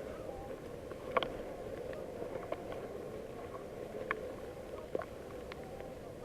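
A few sharp clicks and snaps at irregular intervals over a steady low hum.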